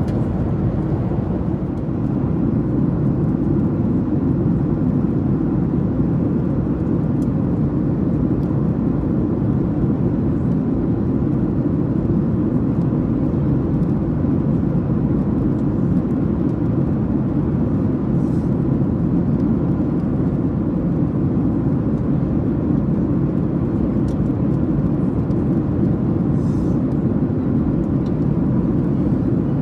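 Boeing 737-800 cabin noise in flight: the steady rumble of the engines and the airflow over the fuselage, heard from inside the cabin at a window seat.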